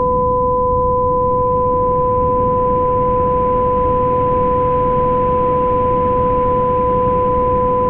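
Homemade binaural beat made in Audacity: two steady, unchanging synthesized tones, a mid-pitched one and another an octave above, held over an even rushing noise that is heaviest in the low end.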